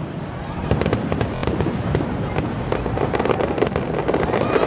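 Aerial fireworks display: shells bursting in a dense, rapid run of pops and crackles over a continuous low rumble.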